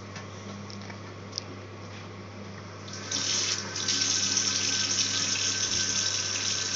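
Bathroom sink faucet turned on about three seconds in, then tap water running steadily into the basin and over a doll held under the stream to rinse its hair. A low steady hum sits underneath throughout.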